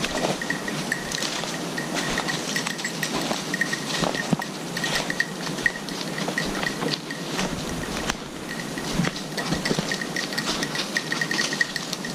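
Small bell on a hunting setter's collar, ringing in quick irregular clusters as the dog works through the undergrowth, over crackling of twigs and dead leaves underfoot.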